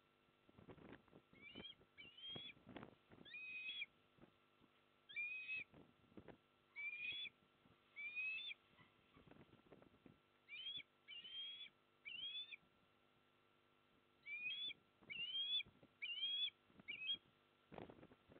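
Osprey at the nest calling, a run of short whistled notes, each rising in pitch, given in several bouts of two to five. Wind buffets the microphone with low rumbles at the start and again near the end.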